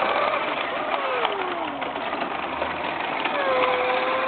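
Remote control car's motor whining as it drives and drifts, its pitch falling about a second in and holding steady near the end, over a steady hiss.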